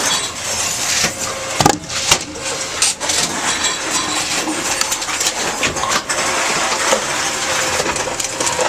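Tomra T-63 reverse vending machines taking in containers: a steady rattling, crushing clatter of cans and bottles, with a few sharp knocks about two and three seconds in.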